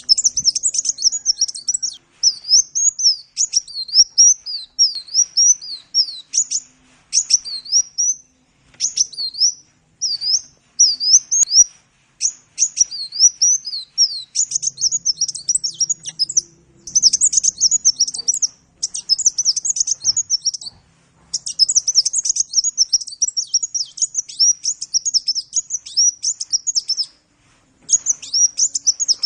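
A sunbird (the 'kolibri' of Indonesian bird-keepers) singing a fast, high-pitched string of chirps and twitters in long phrases broken by short pauses.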